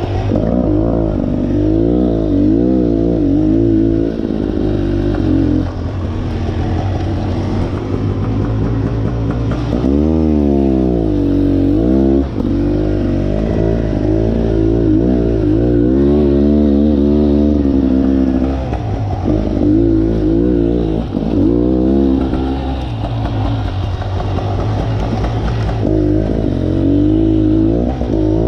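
Dirt bike engine revving up and down with the throttle while riding single-track trail, its pitch rising and falling constantly and dropping sharply before climbing again about ten seconds in.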